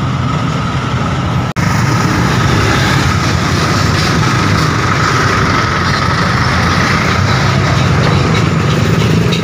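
Dense road traffic at close range: car and motorcycle engines running as they crawl past in a jam. The sound drops out for an instant about one and a half seconds in.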